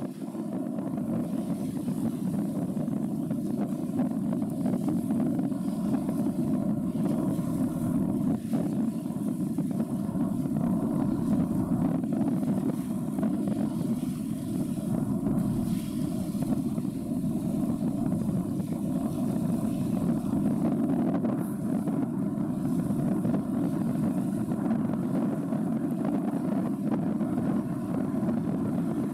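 Steady low rumble of ships' engines as a container ship and a tug pass.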